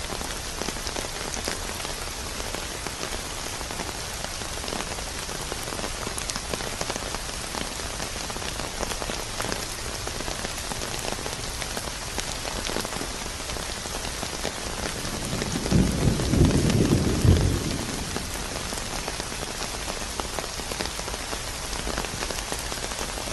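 Heavy rain falling steadily, with one low roll of thunder lasting about two seconds, about two-thirds of the way through.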